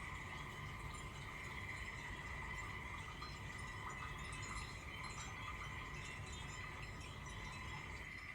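Steady chorus of frogs and insects, a continuous high buzzing with no break.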